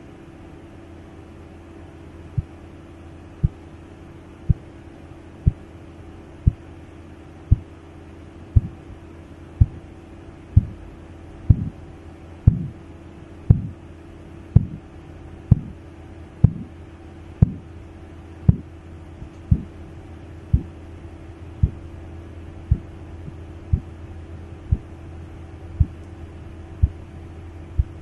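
Korotkoff sounds heard through a stethoscope over the brachial artery as a blood pressure cuff deflates. Low taps come about once a second over a steady hum: they start about two seconds in, the first tap marking systolic pressure, grow louder to a peak near the middle, then gradually soften.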